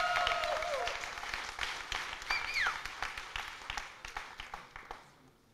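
Audience applauding, with a few voices over the clapping at the start; the applause thins out and dies away near the end.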